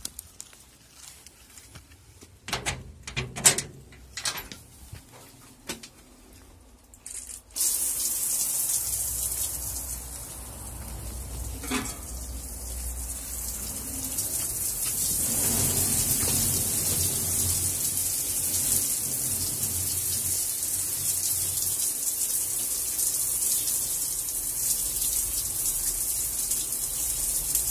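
A few clattering knocks, then water suddenly starts pouring from an overhead tap and runs on as a steady hiss, splashing over a wire grill basket being rinsed clean.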